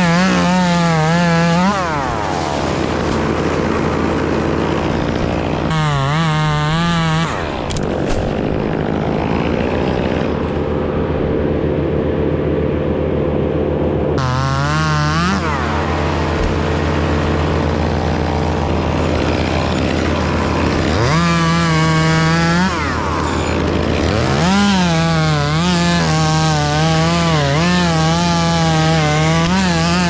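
Gas top-handle chainsaw cutting wood, revved to full throttle and bogging slightly under load in five bursts, dropping back to a steady idle in between.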